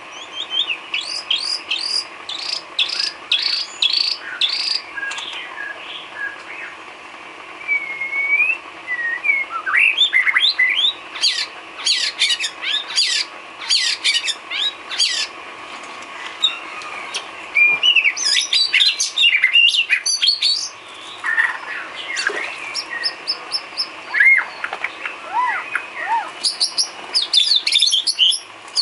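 White-rumped shama (murai batu) singing a long, varied song of rapid repeated chirps, rising and falling whistles and trills, packed with learned filler phrases (isian). A faint steady hum runs underneath.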